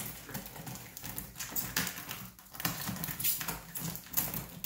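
Scissors cutting and scraping along the plastic packing tape on the seam of a cardboard box, giving an irregular run of short scratching, crackling strokes.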